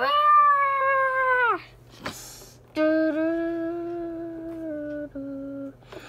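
A child's voice making two long, drawn-out vocal sounds rather than words: a high one lasting about a second and a half, then, after a brief noise, a lower one held for about three seconds.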